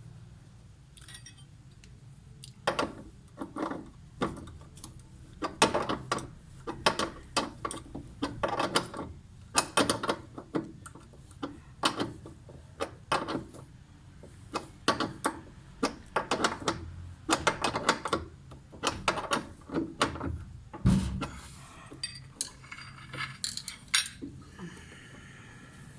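Metal clicks and clinks of a hand tool working the retaining screw of a washing machine's drive pulley, an irregular run of sharp knocks about one or two a second, starting about three seconds in.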